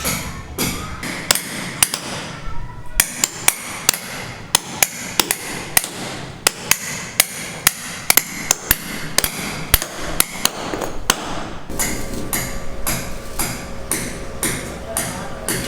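Repeated sharp knocks, about three a second, in an even striking rhythm. A faint steady tone comes in about twelve seconds in.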